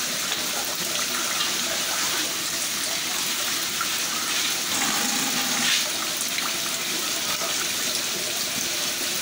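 Water running steadily in a shallow hatchery tank, a continuous rushing noise with a slight surge about halfway through.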